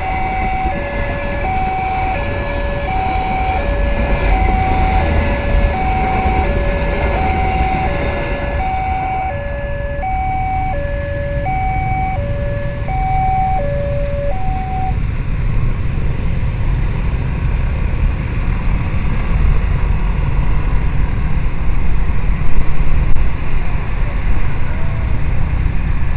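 Railway level-crossing warning alarm sounding two alternating tones, each about 0.7 s long, over the noise of a passing passenger train. The alarm stops about 15 s in, and motorcycle engines and wind noise carry on as traffic moves off across the crossing.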